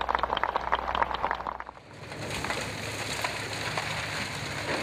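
Crowd applause in an old, hum-laden archival recording of Martin Luther King Jr.'s 'I Have a Dream' speech: dense, irregular clapping. About two seconds in, it changes to a steady, even hiss of noise.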